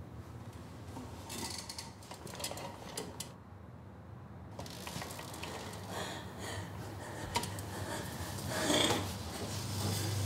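Light clicks, creaks and rubbing from a metal-framed manual wheelchair as the person sitting in it shifts and starts to move it, with the loudest rub about nine seconds in. A steady low hum runs underneath.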